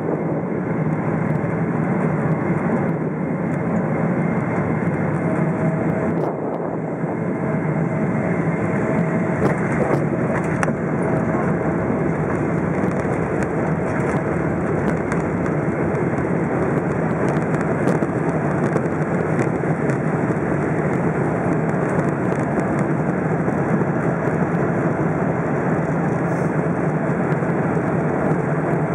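Steady roar of a Boeing 777-300ER's GE90-115B engines and airflow, heard from inside the passenger cabin during the low final approach.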